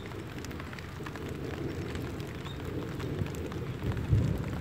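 Wind buffeting the microphone, a choppy rumble that swells about four seconds in, with a couple of faint, short bird chirps above it.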